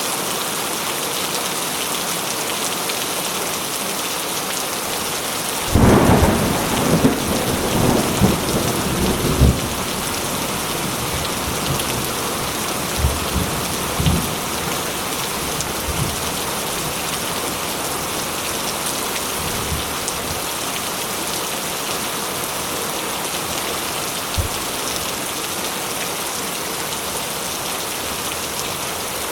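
Steady rain, with a sudden clap of thunder about six seconds in that rumbles on for a few seconds, and fainter rolls of thunder later.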